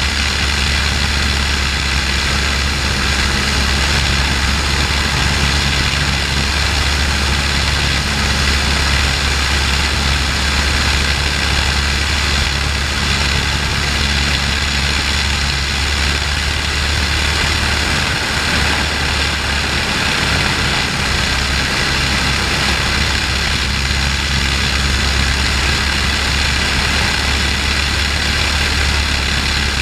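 de Havilland Tiger Moth's four-cylinder Gipsy Major engine heard from inside the open cockpit, running steadily at cruise-climb power with a deep even drone, under a steady rush of slipstream air.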